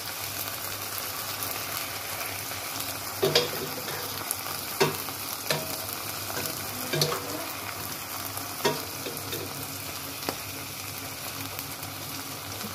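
Diced onions and meat slices sizzling steadily in a nonstick frying pan. A metal spatula stirs them, knocking against the pan about half a dozen times.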